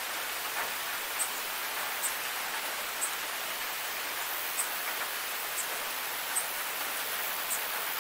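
Steady, unbroken hiss of rain, with short high ticks about once a second.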